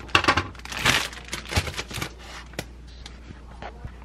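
A plastic bread bag crinkling loudly in the first second as bread rolls are pulled out of it. A few light knocks follow as the rolls are handled and set down on a plastic tray.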